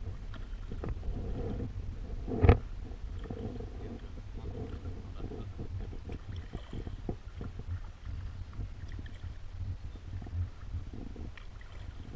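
Kayak paddling: paddle strokes and water dripping, with small scattered clicks and taps, over a steady low rumble. A single sharp knock about two and a half seconds in is the loudest sound.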